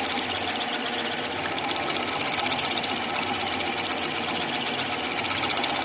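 Metal lathe running, a steady rapid mechanical clatter with an even fast ticking.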